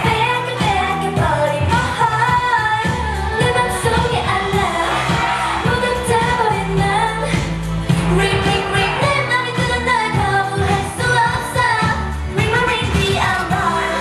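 K-pop girl-group song with female vocals singing over a pop track driven by a strong, regular bass beat.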